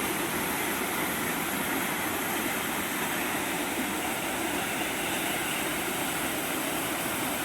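Steady rushing of a waterfall and fast-flowing river water, an even noise with no breaks.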